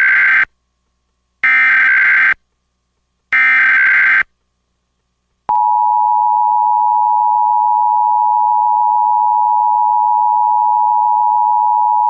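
Emergency Alert System SAME header: three bursts of about a second each of screeching digital data, the first already under way, here encoding a Required Monthly Test. About a second after the last burst, the EAS two-tone attention signal (853 and 960 Hz) starts and holds steady.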